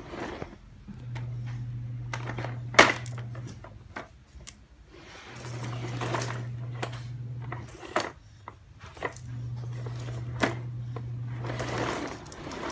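Knocks and clatter from a toddler's plastic push-walker toy being handled and bumped on a hard tile floor, with the loudest knock about three seconds in. Under them a low steady hum comes and goes three times, each spell lasting about two and a half seconds.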